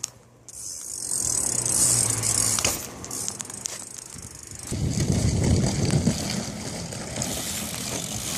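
BMX bike rolling on pavement, its tyres hissing and its parts rattling with scattered clicks. About five seconds in, a heavier rumbling starts.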